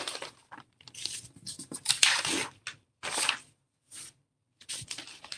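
Sheets of thin calligraphy paper rustling and crinkling as they are picked up, shifted and laid down on the mat, in a run of separate rustles, loudest about two seconds in.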